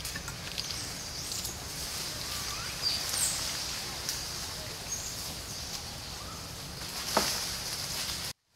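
Open-air forest ambience: a steady high hiss over a low wind rumble, with a few short, thin bird chirps and one sharp click about seven seconds in. The sound drops out briefly just before the end.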